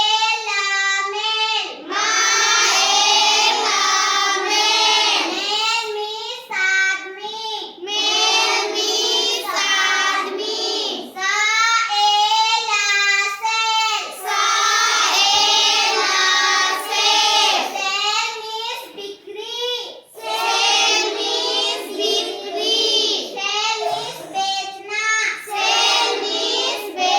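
A young child's high voice singing or chanting in a sing-song way, in phrases broken by short pauses.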